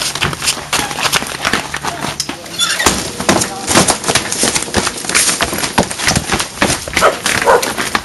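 Scuffle of a fistfight on bare ground: a rapid, irregular run of knocks, thuds, slaps and footfalls.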